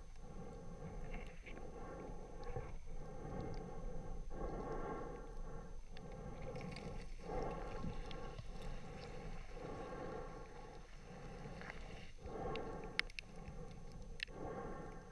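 Muffled whooshing of a spearfisher swimming at the surface, heard through a waterproof camera housing, coming in pulses about every second and a half. A few sharp clicks come near the end.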